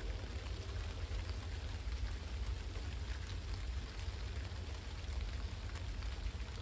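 Steady rain falling, with scattered drops ticking close by and a low rumble underneath.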